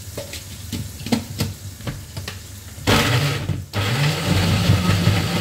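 A spatula clicks against a wok over light frying. About three seconds in, an electric kitchen blender switches on with a sudden burst, cuts out for a moment, then runs on with its motor pitch rising as it grinds chillies, candlenuts and garlic into a spice paste.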